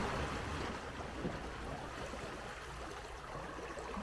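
Outboard motor of a small open boat throttled back as the boat slows, the running noise dropping in the first second to a low, steady hum with water washing along the hull.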